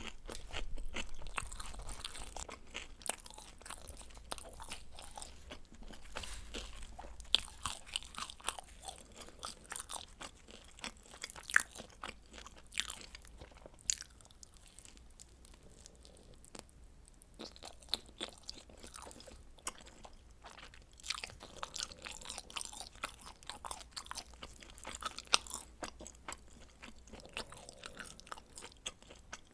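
Close-miked eating of pizza: crisp crust crunching and chewing, with frequent sharp crackles and mouth clicks and a quieter stretch of softer chewing about halfway through.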